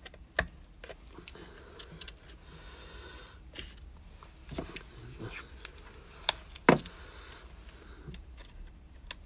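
Hands handling a plastic and card model building while pressing wires and electrical tape down inside it: scattered light clicks, taps and rustles, with two sharper clicks, about half a second in and about two-thirds of the way through.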